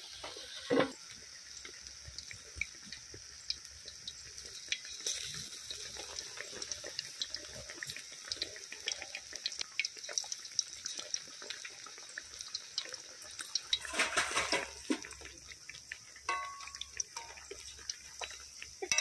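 Battered fritters deep-frying in hot oil, a steady sizzle full of small pops and crackles. The sizzling swells into a louder rush about three-quarters of the way through.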